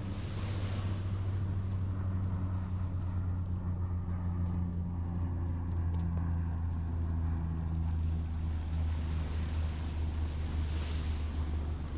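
Steady low drone of a boat engine running, with small waves washing onto the pebble shore about half a second in and again near the end.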